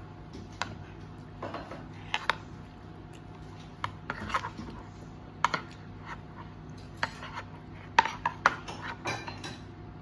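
Metal spoon clicking and scraping against a toddler's divided plate as a child scoops up food: about ten irregular taps and short scrapes, the loudest about eight seconds in, over a faint steady hum.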